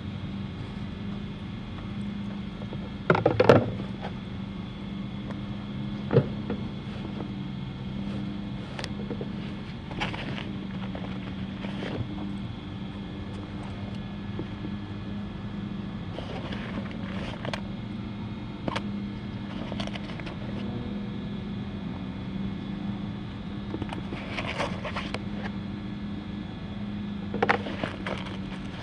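A steady low hum with scattered short knocks and rattles, a dozen or so spread through, the loudest a cluster about three seconds in.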